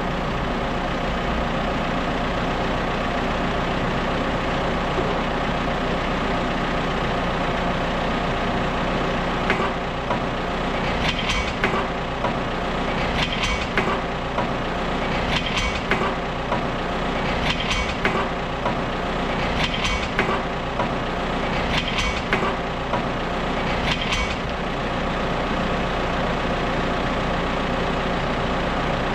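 Farm tractor's diesel engine running steadily at idle. Through the middle there is a series of about eight short clicking or clanking sounds, roughly two seconds apart.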